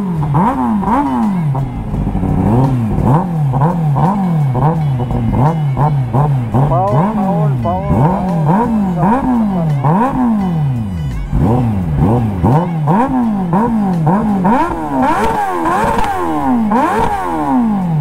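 Kawasaki ZX-10R inline-four engine revved over and over in quick throttle blips, its pitch rising and falling about once or twice a second.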